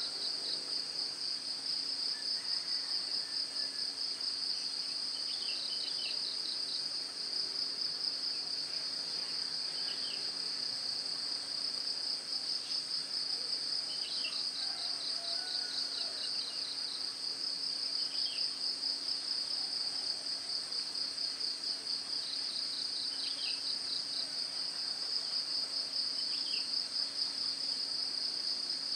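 Steady chorus of insects, a high, fast-pulsing trill, with a few short chirps every few seconds over it.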